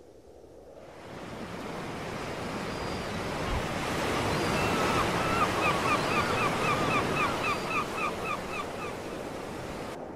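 Waves washing onto a beach, swelling over the first few seconds, with a gull giving a quick run of short, repeated calls, about three a second, through the middle.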